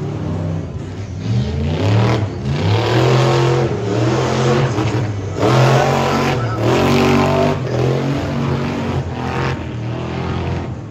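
Pro-class tuff truck engines revving hard under throttle as the trucks race on dirt, pitch climbing and falling repeatedly, with brief dips where the throttle eases off about two, five and nine seconds in.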